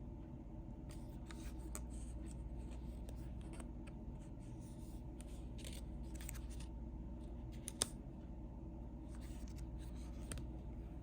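Unboxing sounds of packaging being handled: short, intermittent rustling and scraping with a sharp click about eight seconds in, over a steady low hum.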